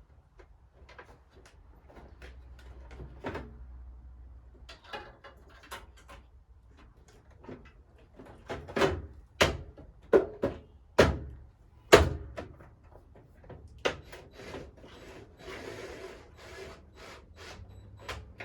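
Knocks and clatter of parts and tools being handled while a washing machine is reassembled, with five hard knocks in quick succession midway and a brief scraping rub near the end.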